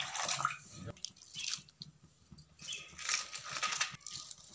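A stream of water pouring into a steel kadai, stopping about a second in. Then chopped cabbage is tipped into the pan in several goes, making irregular rustling and crackling.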